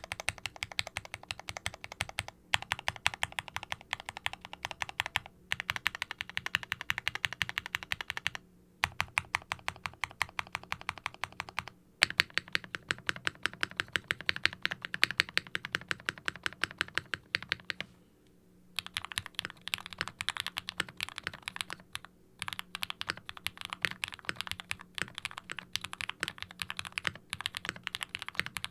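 Fast typing on a tray-mounted KBDfans Tofu60 mechanical keyboard with foam and a brass weight inside, fitted with linear Gateron frankenswitches (nylon bottom housings, polycarbonate tops, UHMWPE stems): soft, muted clacks on bottom-out, in bursts of several keystrokes a second with brief pauses between runs.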